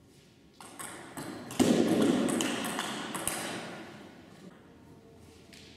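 Table tennis rally: a few sharp clicks of the ball off bats and table, then a loud sudden sound about a second and a half in that rings on and fades through the hall.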